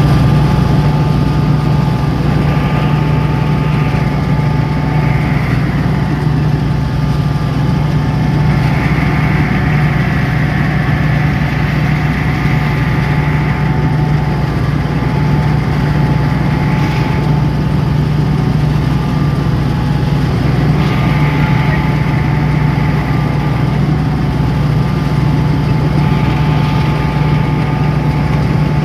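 Mahindra Arjun Novo 605 CRDi tractor engine running steadily while driving a Balkar B 525 rice harvester. There is a loud constant low hum with a steady higher whine, and a hiss from the machinery that swells and fades every few seconds.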